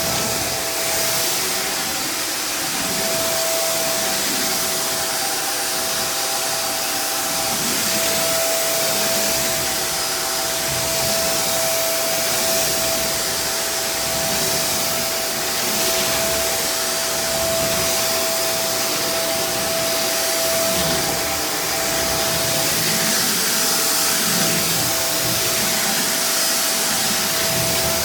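Hoover React Professional Pet Plus UH73220 upright vacuum running steadily: a constant motor whine over the rush of air through the suction motor.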